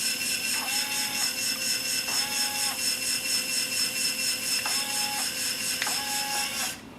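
Electric drive motors and gearboxes of a 1/16 scale Die Cast Masters RC Cat loader running: a steady whir with a fast, even clatter. Four short higher-pitched whines come in over it, and it stops abruptly near the end.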